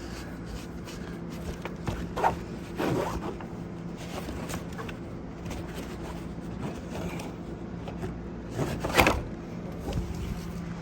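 Wheel cover being pulled off a motorhome tire: short scraping, rustling handling noises, the loudest about nine seconds in.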